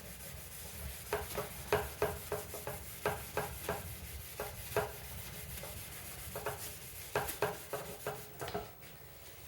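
Scrubbing pad from a Meguiar's headlight restoration kit rubbed by hand back and forth over a plastic headlight lens, rasping strokes about three a second, dying away near the end.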